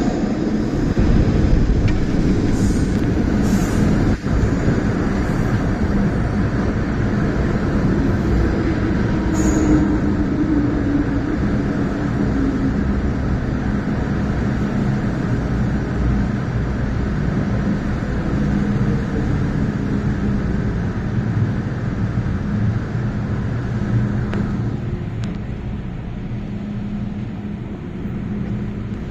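MTR M-Train electric multiple unit pulling into the station and slowing to a stop: steady rumble of wheels on rails and traction equipment, with a falling whine about ten seconds in as it slows. The noise eases off over the last few seconds.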